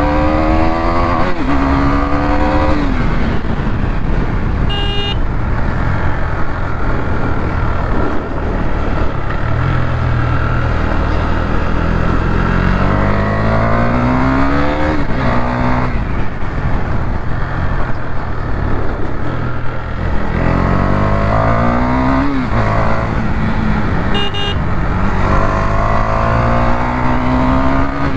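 KTM 390 motorcycle's single-cylinder engine accelerating hard up through the gears: its pitch climbs and then drops at each upshift, several times over, under heavy wind rush. A short horn beep sounds twice.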